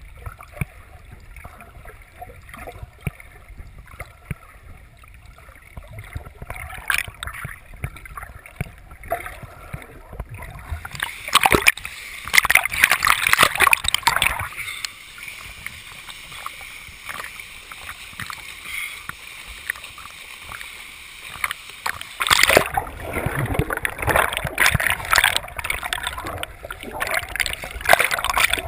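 Water sloshing and bubbling heard through a camera held just under the surface, with a low rumble throughout. There are louder stretches of crackling splashes and bubbles near the middle and again toward the end.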